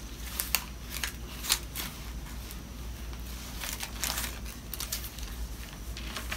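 Paper pages being leafed through: soft rustling and crinkling with a few brief, sharper page flicks.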